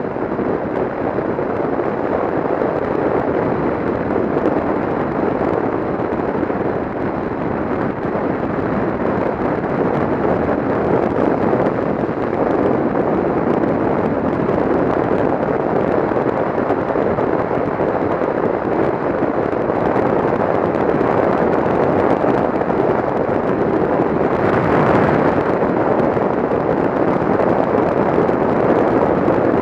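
Steady wind rush and road roar on a motorcycle-mounted camera riding at speed, with the crackle of wind buffeting the microphone. A brief, brighter rush swells about 25 seconds in.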